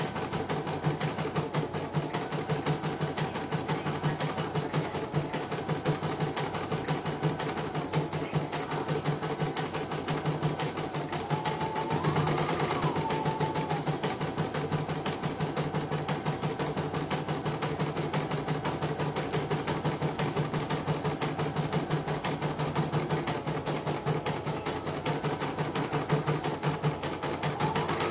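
CNY portable computerized embroidery machine stitching a design, its needle bar running in a rapid, steady clatter of stitches. The machine had come in dead and is running again after repair.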